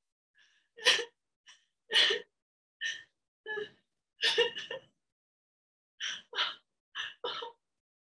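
A woman crying: about ten short, choked sobs and gasping breaths, with dead silence between them and a pause of about a second in the middle.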